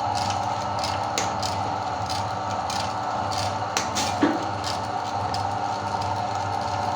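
Electric meat grinder's motor running steadily, with scattered sharp clicks and cracks as Oreo cookies are crushed, the loudest crack a little after the middle.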